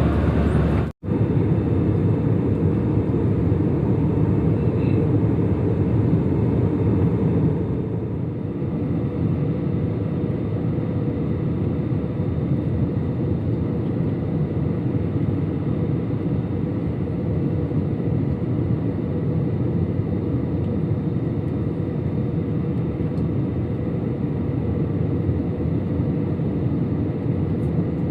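Steady low rumble of an airliner's engines and airflow heard inside the passenger cabin. It breaks off for an instant about a second in, then runs on a little quieter and duller from about eight seconds in.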